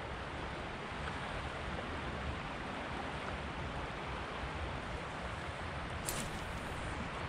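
Steady rush of flowing stream water, with a single brief click about six seconds in.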